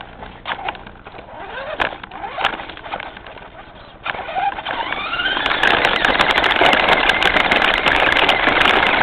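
Traxxas Stampede R/C truck's motor whining in short bursts of throttle, then a long rising whine about four seconds in as it speeds up. From then on the whine carries on loud with dense rattling and tyre noise as the truck runs over the ground.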